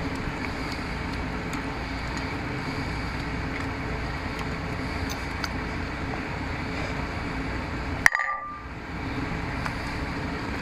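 A dog eating steak off a paper plate, chewing and licking, heard as faint small clicks over a steady mechanical hum in the background. A sharp click about eight seconds in, after which the sound briefly drops out.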